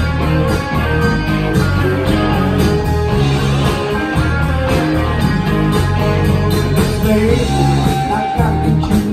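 Live amplified country-rock band playing an instrumental break, with electric guitars, electric bass and a drum kit keeping a steady beat.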